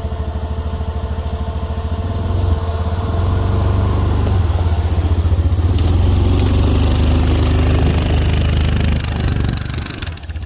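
Snowplow truck's engine working as it pushes snow: a pulsing low rumble that grows louder a couple of seconds in and eases off near the end.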